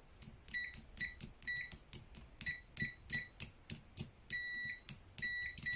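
VENLAB VM-200M digital multimeter being operated, giving a string of sharp clicks at about two to three a second. Most clicks are followed by a short, high electronic beep, and one longer half-second beep comes a little after four seconds in.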